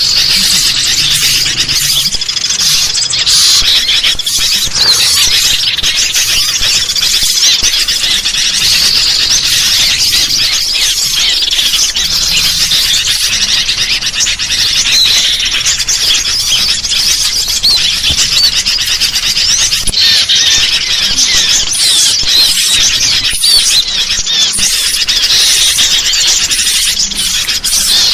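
Dense, unbroken chorus of bird chatter: sooty-headed bulbuls calling noisily, mixed with the high chirps and squeaky calls of small birds. It is a bird-lure recording meant to draw in small birds.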